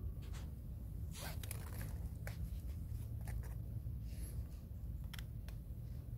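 Scratchy rustling and small ticks of a hand and jacket sleeve rubbing over a fallow deer fawn's head and fur as it is stroked, irregular and close, over a steady low rumble.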